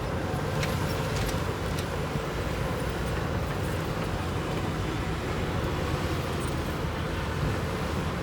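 Heavy earthmoving machinery's diesel engine running steadily: a continuous low rumble, with a few faint clicks above it.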